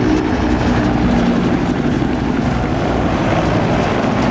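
Bell AH-1 Cobra attack helicopter flying a display pass overhead: a loud, steady rotor beat over the turbine's tone, which dips slightly in pitch in the first second or so.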